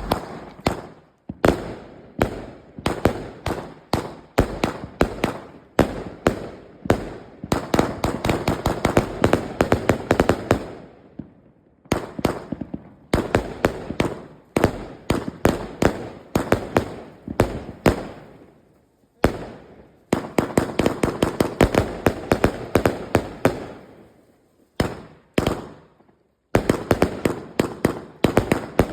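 A "King of Bling" consumer firework cake firing a rapid string of sharp bangs, several a second, in volleys with brief pauses of about a second between them.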